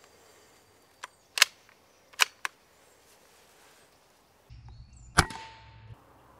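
Moderated Walther RM8 PCP air rifle firing at squirrels: a sharp crack about a second and a half in and another about two seconds in, with smaller clicks near each, then a further crack about five seconds in over a low hum.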